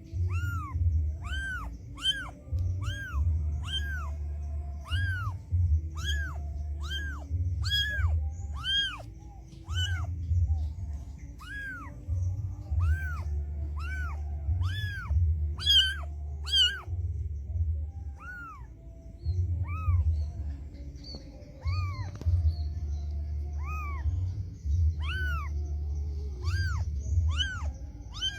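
A cat meowing over and over in short, high mews, each rising and falling in pitch. They come about one to two a second, then space out to one every second or two in the second half, over background music with a low bass.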